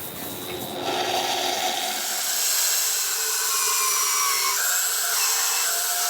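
Power tool cutting into wood: a steady, high hissing whine that gets louder about a second in.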